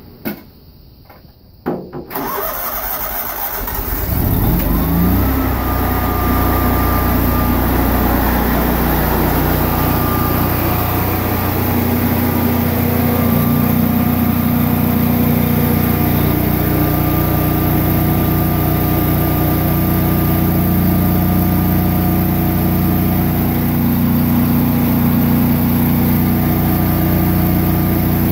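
A couple of sharp clicks, then the Kohler 8.5RMY standby generator's engine cranks and starts about three seconds in, rising in pitch as it comes up to speed. It then runs steadily at governed speed. This is an automatic start after utility power is switched off.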